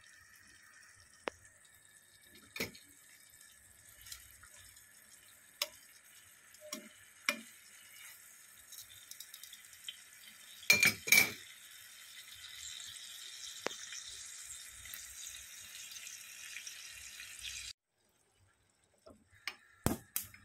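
Pork ribs sizzling in a sticky sauce in a nonstick frying pan, a steady faint hiss, with a few sharp clinks of a utensil against the pan, the loudest two close together about eleven seconds in. The hiss cuts off suddenly near the end.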